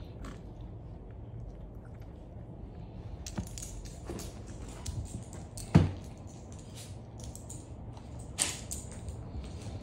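Dogs moving about on a leather sofa and floor: scattered soft knocks and rustles over a low background hum, with one sharp thump about six seconds in and a smaller one a couple of seconds later.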